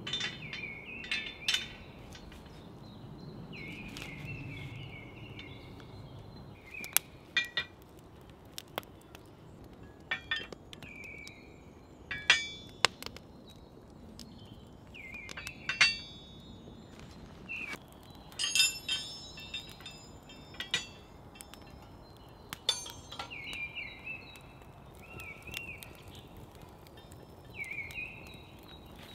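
Iron S-hooks and the iron bar of a campfire cooking rig clinking and knocking as they are handled and a kettle is hung, a dozen or so sharp metallic clinks in irregular clusters, loudest near the middle. A bird chirps in short repeated calls throughout.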